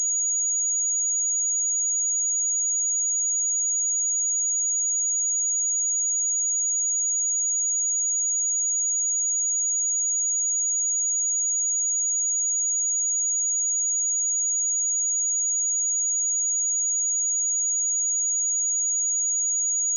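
A pure 6755 Hz sine-wave test tone, one steady high-pitched note held at constant level.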